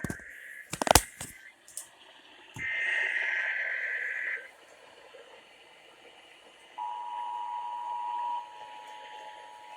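Broadcast radio Emergency Alert System test signals. Crackling clicks come first, then a harsh burst of SAME digital header tones about three seconds in. The steady two-tone EAS attention signal begins near seven seconds and drops in level about a second and a half later.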